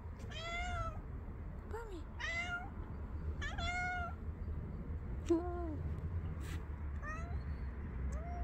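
Grey-and-white tabby domestic cat meowing repeatedly: about five short meows, each under a second and bending up then down in pitch.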